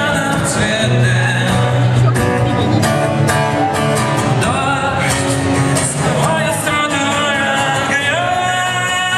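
Pop-rock band music: a singer over guitar, bass and a steady drum beat.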